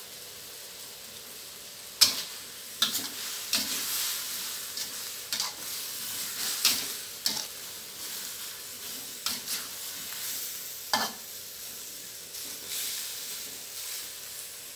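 Pork and cauliflower stir-fry sizzling in a stainless steel wok, with a metal spatula scraping and clanking against the pan in irregular strokes. The spatula strokes start about two seconds in and are the loudest sounds; the sizzle runs steadily beneath them.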